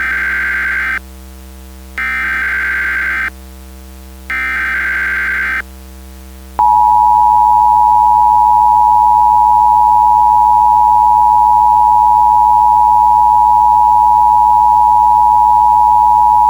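Emergency Alert System alert opening: three short bursts of buzzing digital header data, each about a second long and a second apart, then a steady, louder attention tone held for about ten seconds. A constant low hum runs underneath.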